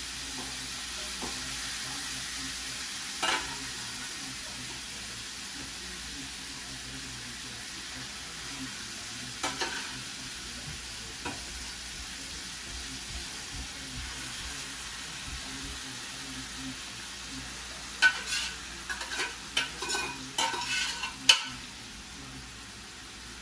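Chicken backs frying in a hot pot with a steady sizzle, stirred with a utensil that knocks and scrapes against the pot now and then, with a quick run of clatters near the end.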